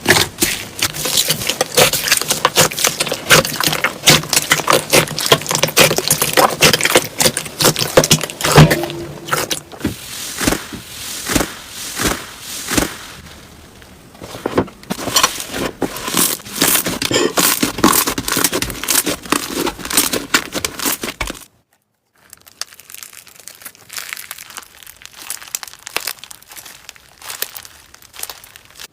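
Hands squeezing and working slime, making a dense, continuous run of crackling pops and clicks. It cuts off sharply about 21 seconds in and picks up again more quietly.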